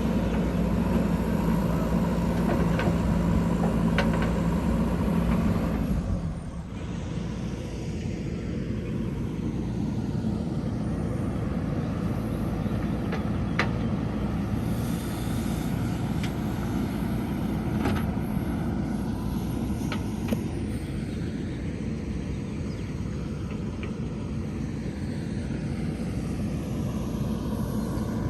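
Diesel engine of a JCB 3DX backhoe loader running steadily. It drops in level about six seconds in and carries on, with a few faint clicks.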